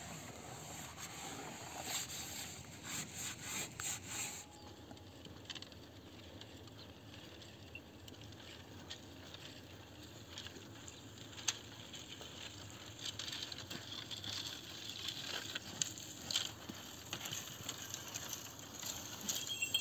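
Hand-washing of metal pots, with rubbing and scraping for the first few seconds. After that come faint crunching steps on dry, stony ground and the rustle and scrape of a bundle of dry branches being gathered and carried, with scattered sharp clicks of twigs.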